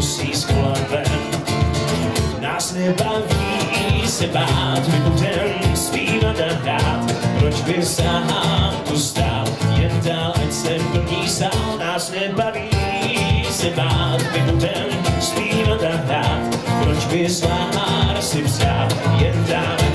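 Live pop-folk band music: acoustic guitar strumming over a steady drum and bass beat, with some singing.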